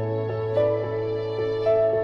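Soft, slow background music of held chords, with new notes entering about half a second and about one and a half seconds in.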